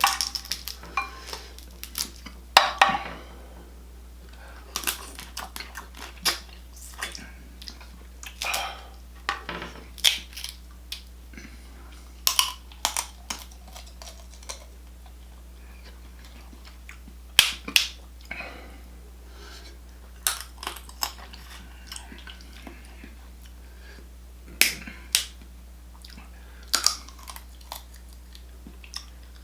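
Close-miked eating sounds of a person chewing seafood in butter sauce: irregular wet mouth smacks and clicks every second or so, over a steady low electrical hum.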